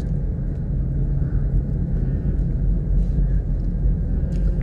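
Steady low rumble of car cabin noise from a car being driven, heard from inside the car, with a few faint clicks near the end.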